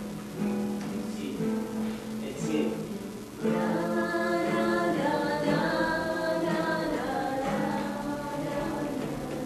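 Acoustic guitar music, with a singing voice coming in about three and a half seconds in and becoming the loudest part.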